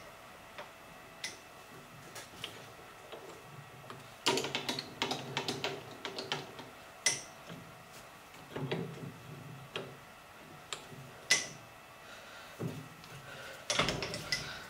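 Scattered metal clicks and clinks from squaring a quick-change tool post's tool holder with a 1-2-3 block: the block tapping against the holder while the tool post's locking lever is swung loose and tightened again. There are short clusters of knocks about four seconds in, again near nine seconds, and near the end.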